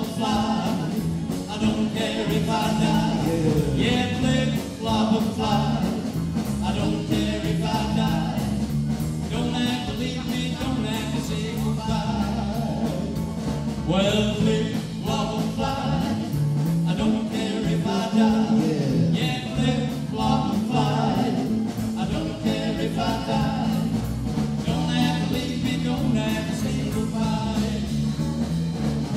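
Live band playing an instrumental break in an uptempo blues and rock and roll number: electric guitar, bass guitar and drum kit over a steady beat, with an amplified harmonica carrying the lead line.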